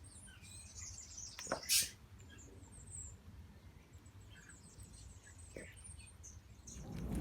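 Young grey-headed flying-fox giving many short, high-pitched squeaks and chirps, the squeaking she makes while being rubbed. One brief, louder rustling burst comes about a second and a half in.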